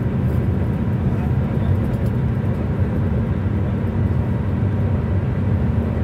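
Steady, deep drone of tyre and engine noise from a car travelling at speed, heard from inside the car.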